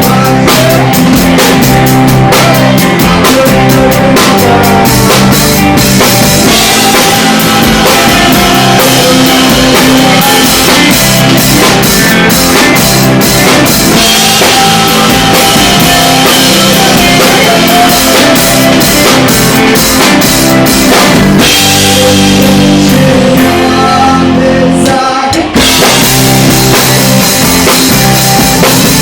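A rock band playing live, with the drum kit to the fore over guitar. About 25 seconds in the band stops for a moment, then comes back in together.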